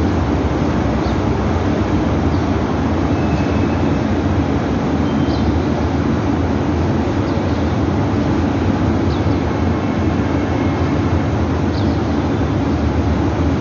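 A steady, loud low rumble of engine-like noise with no change in level, and a few faint short high chirps scattered through it.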